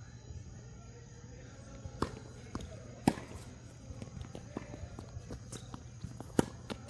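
Tennis ball being hit with rackets and bouncing on a hard court during a rally: sharp pops about two and three seconds in and the loudest one near the end, with lighter taps and footsteps between.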